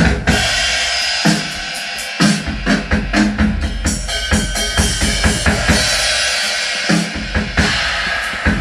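Drum-heavy sound-test music with a steady beat: bass drum, snare and cymbals with deep bass, played loud through a rig of woofers, JBL subwoofers and Crown horn tweeters all running on one amplifier.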